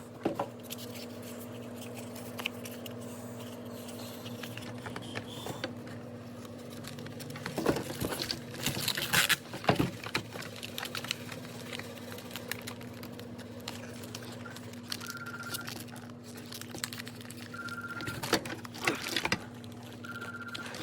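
Clicks, taps and rustling of plastic parts and wiring being handled while a refrigerator's air damper is replaced, over a steady low hum. Near the end come three short, high beeps a few seconds apart.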